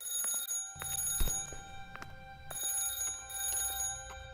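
An alarm ringing in two bursts of about a second and a half each, with a few sharp clicks.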